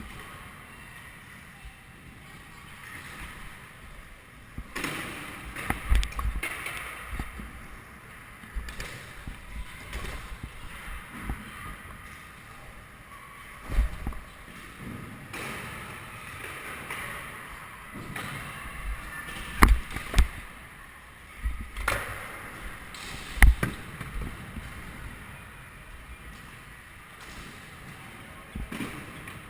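Kick scooter rolling over hard ground with a steady rushing wheel noise, broken by several sharp clacks, two of them in quick succession a bit past halfway.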